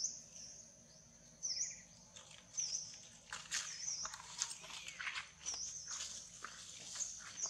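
Short, high bird chirps repeating about once a second. From about three seconds in, dense crackling and rustling of dry leaves as a long-tailed macaque runs across them.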